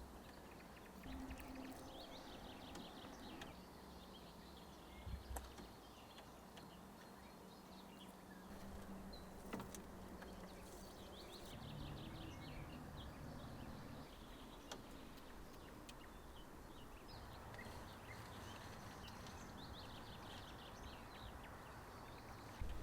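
Quiet forest ambience with faint birds chirping in several short bouts of rapid high notes, and a few small knocks.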